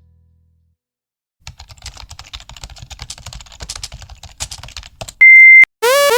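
Rapid irregular clicking of computer keyboard typing for a few seconds. Then a loud, steady high-pitched electronic beep for about half a second, followed by a repeating run of stepping electronic tones.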